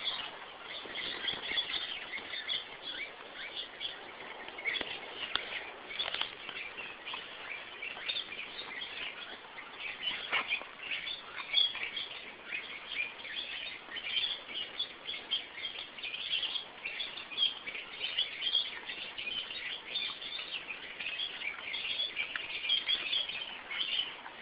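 Many small birds chirping continuously, with a few scattered soft knocks.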